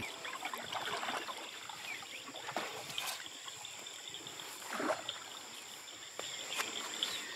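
Small boat being poled through a shallow reedy marsh channel: water swishing and splashing around the pole and hull, with a few louder strokes. A steady high insect drone runs behind.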